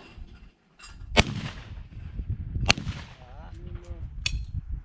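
Two loud shotgun shots about a second and a half apart, each ringing out briefly, fired at a called pair of clay targets; a fainter sharp crack follows near the end.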